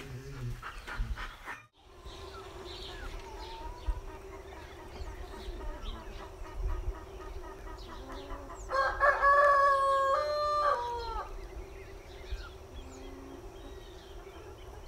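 A rooster crowing once, a single long call held level and then falling away at the end, about two-thirds of the way in. Faint short bird chirps and a low steady hum sit underneath.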